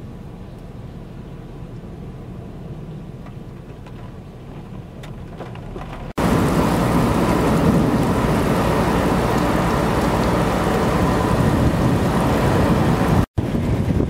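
Heavy thunderstorm rain with high wind. Fairly quiet and rumbling at first; about six seconds in it jumps abruptly to a loud, hissing downpour, which cuts out for an instant near the end.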